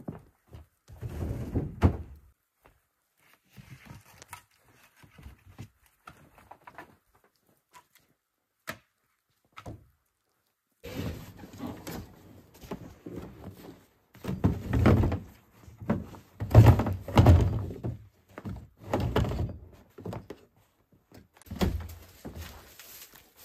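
Thuds and knocks at a wooden hut door, then a run of heavy brushing strokes: snow being swept off with a straw broom.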